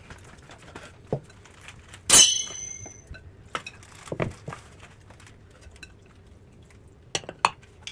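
Dishes and cutlery clinking: scattered light knocks, with one sharp ringing clink about two seconds in, the loudest sound.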